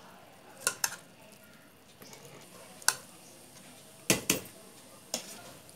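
A metal ladle knocking against an aluminium cooking pot, about six sharp clinks at irregular intervals, as parboiled basmati rice is tipped in and layered over the raw marinated mutton.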